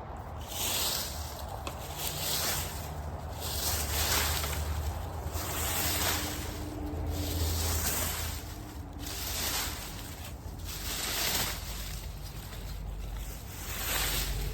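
Rake dragged through dry leaves in repeated scraping strokes, roughly one every second or so.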